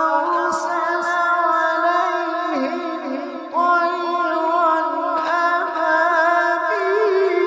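A male reciter chanting the Quran in melodic tajweed style, one voice drawing out long held notes with wavering ornamental turns, with a short break for breath about three and a half seconds in.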